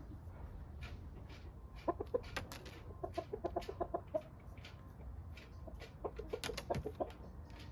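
Chickens clucking: a run of quick, short clucks about two seconds in, and another around six seconds in.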